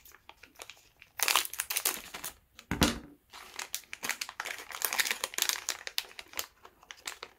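Plastic parts bags crinkling and rustling as they are handled and opened to take out a drive shaft part, in irregular spells, with one short dull knock about three seconds in.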